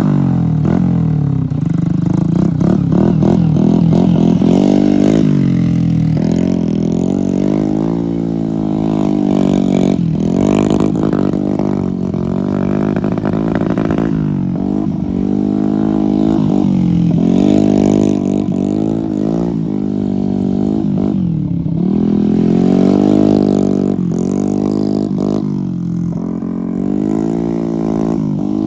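Small step-through motorcycle engine revving hard, its pitch climbing and dropping back over and over every second or two as the throttle is worked.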